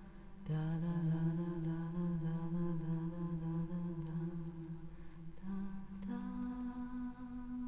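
Slow, meditative music of long held notes that step to a new pitch a few times.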